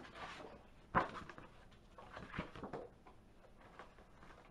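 Sheets of paper rustling and sliding as they are handled and laid on a stack, with one sharp knock about a second in.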